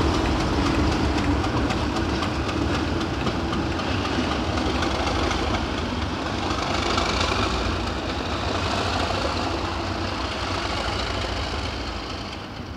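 Class 37 diesel locomotive's English Electric V12 engine running as the locomotive rolls past and away, the sound slowly fading. A wavering high whine joins about halfway through.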